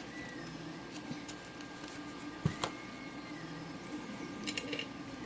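Light metallic clicks and taps of a lock pick and tension wrench working in a lock, with two sharper clicks a little before the middle and a brief cluster of ticks near the end, over a steady background hum.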